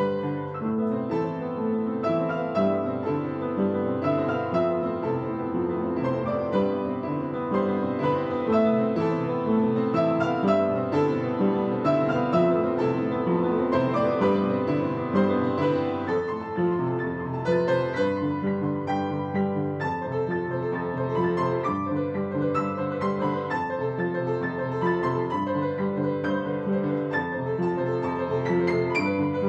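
Piano music: a continuous flow of notes and chords.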